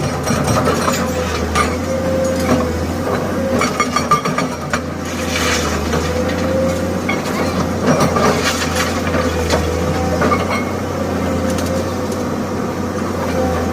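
Excavator fitted with a hydraulic breaker working on concrete: the diesel engine runs steadily under a wavering hydraulic tone, with irregular metallic knocks and short bursts of rapid hammering as the breaker works.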